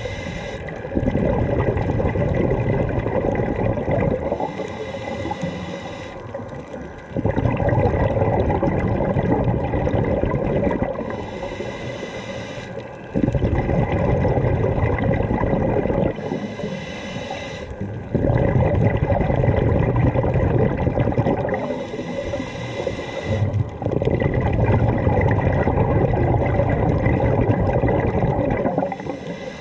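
Scuba diver breathing through a regulator, heard underwater: a hiss on each inhale, then a long rush of bubbling exhaust on each exhale. About five breaths, one every five to six seconds.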